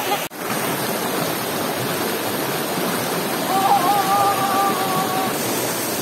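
Steady rushing of a shallow rocky stream pouring over rocks and small rapids, with a brief drop-out just after the start. Midway a single held high tone sounds for nearly two seconds.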